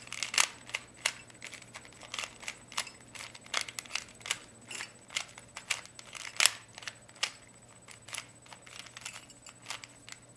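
Rubik's Cube being turned by hand to solve it: quick, irregular plastic clicks and clacks as its layers snap round, a few a second.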